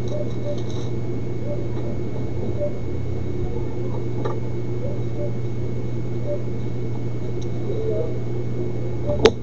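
Steady low electrical hum with faint thin high tones above it, and one sharp click near the end.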